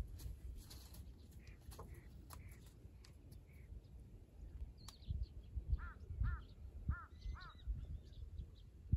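Crow cawing four times in quick succession, a little past halfway, over a low rumble.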